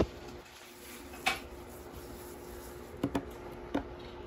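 Pepper being shaken from a shaker over a salmon fillet on a plate: a handful of faint, brief taps and clicks, over a faint steady hum.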